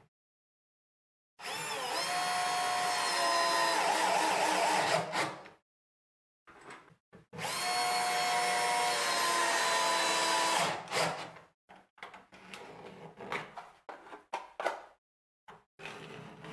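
Hand-held power drill running into the wooden framing of a plywood boat's deck box, in two runs of about four and three seconds. Its whine rises briefly at the start of each run and drops lower partway through. Light knocks and handling of wood follow.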